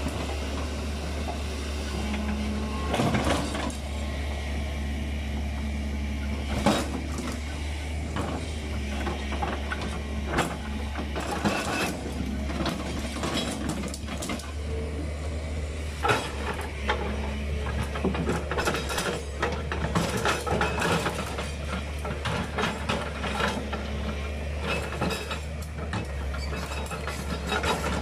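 Sumitomo SH210 hydraulic excavator's diesel engine running steadily, with frequent clanks and knocks throughout.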